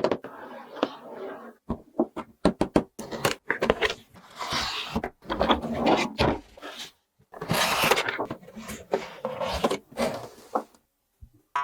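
Plastic toys and pieces being handled at close range: a run of clicks, knocks and scraping.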